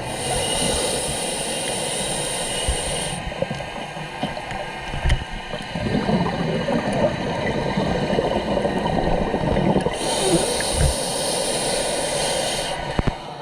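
Scuba diver breathing through a regulator, heard underwater: a hissing inhale for about three seconds, a long rush of exhaled bubbles, then a second hissing inhale near the end.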